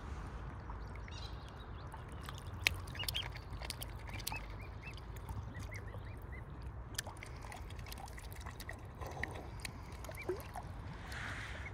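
Mute swan cygnets peeping: many short, high chirps scattered throughout, with a few sharp clicks over a steady low rumble.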